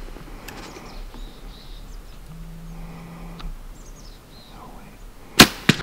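Quiet outdoor ambience with faint bird chirps, then near the end two sharp, loud knocks in quick succession.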